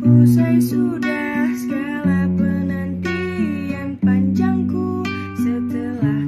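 Acoustic guitar playing chords, the bass note changing about every two seconds, accompanying a voice singing.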